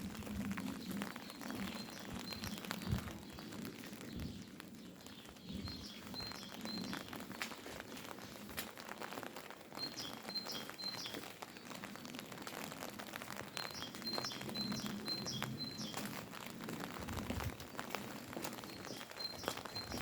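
Steady rain patter with fine drip ticks. A songbird repeats a short phrase of rapid high chirps about every four seconds.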